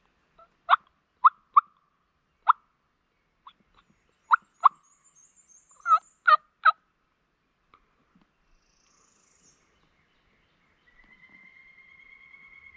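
Turkey clucks: about nine short, sharp notes in loose groups of two or three, stopping about seven seconds in. Faint high chirps of a small bird sound in the middle, and a faint steady whine comes in near the end.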